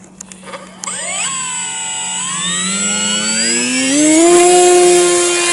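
Sky Hunter RC plane's electric motor and propeller spooling up for a one-person hand launch: a whine starts about a second in, rises in pitch as the throttle comes up and the plane is thrown, then holds steady and loudest near the end.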